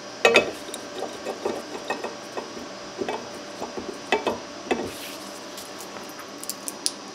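Large adjustable wrench clinking and knocking against a twisted steel mower-deck plate clamped in a bench vise, as the plate is levered to take the twist out. Scattered short metallic knocks and clinks, a few of them ringing briefly.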